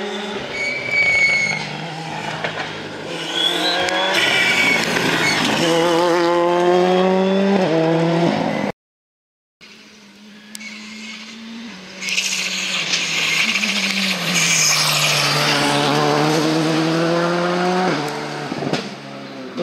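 Two R5-class rally cars' turbocharged four-cylinder engines at full throttle, one after the other. The first revs up with its engine pitch climbing through the gears and cuts off abruptly. The second comes in quieter, then loud, with the pitch dropping and climbing again across gear changes.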